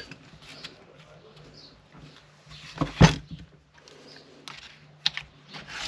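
Small parts of a Stihl MS180 chainsaw being handled during disassembly. Two sharp clicks come close together about three seconds in, and a few lighter clicks follow near the end, over a faint low hum.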